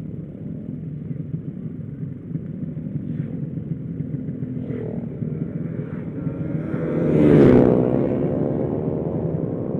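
Motorcycle engine running steadily while riding, with road and wind noise. A louder rush of noise swells up and fades about seven and a half seconds in.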